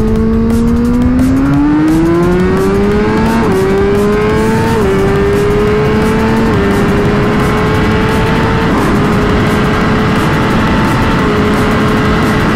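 Suzuki GSX-R1000R's inline-four engine at full throttle in a top-speed pull. The pitch climbs and drops sharply at five upshifts, each gear climbing more slowly until the note is nearly level near top speed, over a steady rushing noise.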